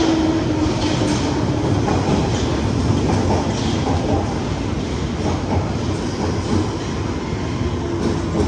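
London Underground 1973 Stock train running into the station, with a steady rumble and clatter of wheels on rails. A whine falls slightly in pitch and fades about a second in, as the train slows.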